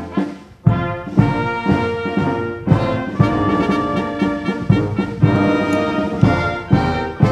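Brass band playing slow, solemn music: sustained brass chords that change every second or so, with strong low notes marking the beat.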